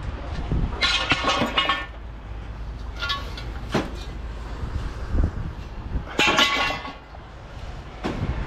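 Loose scrap metal clanking and rattling in several bursts, about three times, over a steady low vehicle rumble.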